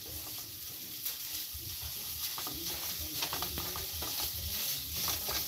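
Wooden spoon scraping and breaking up raw ground pork sausage in a nonstick frying pan, with the meat frying in a little olive oil and sizzling softly.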